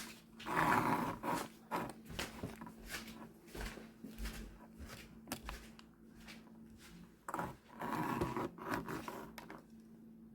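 Clicks, scrapes and rustles of small parts and wires being handled, with two louder stretches of scraping, over a steady low hum.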